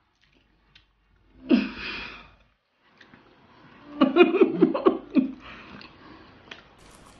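A short wordless vocal sound from a person eating, then a burst of laughter about four seconds in, in quick pulses.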